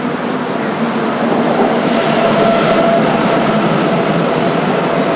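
Sydney Light Rail ABB-built trams running on the line, with a continuous rolling noise and a steady whine over it that grow louder about two seconds in as a car draws near.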